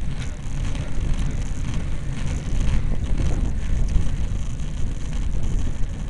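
Wind buffeting the microphone of a bicycle-mounted camera during a road climb, a steady low rumble with scattered faint clicks and rattles.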